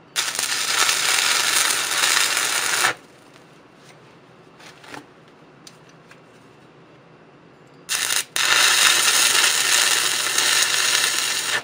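Stick-welding arc from a 3/32 6011 rod at around 85 amps, welding a bolt onto a broken-off bolt stub to extract it. The arc runs twice: about three seconds at the start, then after a pause of about five seconds for about four seconds more, breaking off for an instant just after it strikes.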